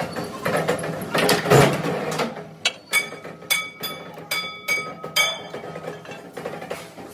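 Press and steel-plate clatter with a heavy metal thump about one and a half seconds in, then about seven bright ringing metallic clinks over two and a half seconds as the punched-out oval mild-steel slugs are knocked together.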